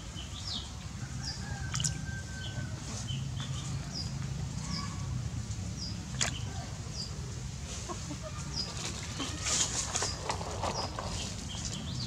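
Birds chirping: short high falling chirps repeated every second or so, over a steady low rumble, with a few sharp clicks and short bursts of noise near the end.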